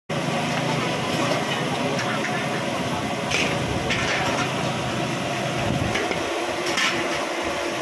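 Metal spatula scraping against a large wok during stir-frying, a few sharp scrapes, over the steady din of a busy market with voices. A low hum underneath stops about six seconds in.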